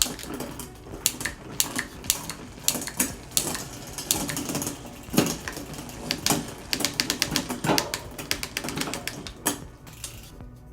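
Mountain bike drivetrain being run through the gears: a rapid, irregular series of clicks from the shifter and the chain jumping from cog to cog on the rear cassette as the derailleur shifts, while the chain runs. This is a test run to check the derailleur's cable tension.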